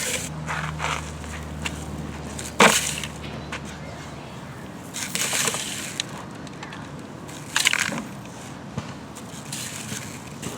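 Sand being scooped and shovelled into a steel toy cement mixer: gritty scraping and pouring in short spells, with one sharp knock about two and a half seconds in. A low hum fades out in the first few seconds.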